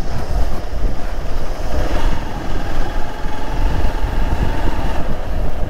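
Motorcycle engine running while riding along a dirt track, with a steady low rumble throughout and a faint steady engine note from about two seconds in to about five seconds.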